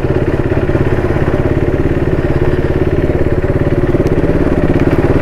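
KTM RC 390's single-cylinder engine running steadily at an even pitch, with a fast, regular throb.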